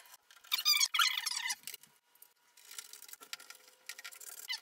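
Wooden trim piece being fitted and fastened by hand onto a wood dresser frame: a burst of squeaking from about half a second in to past the first second, then faint scattered clicks.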